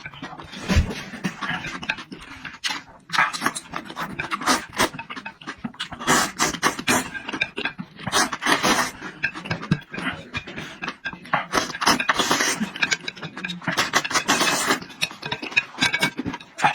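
Close-miked eating sounds: chewing and slurping mixed with heavy panting breaths, in irregular short bursts.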